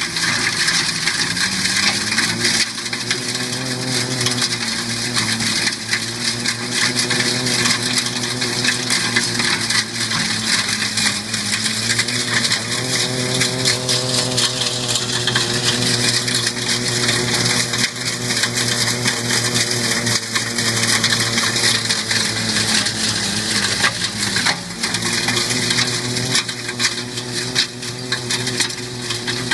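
Engine of a small construction machine running, its pitch rising and falling with load, over continuous heavy rattling and crushing clatter of material being worked.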